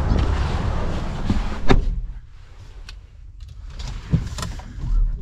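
Getting into a Ford Ranger pickup: rustling movement, then the driver's door shutting with a sharp knock about two seconds in. After that the cabin goes quieter, with a few light clicks.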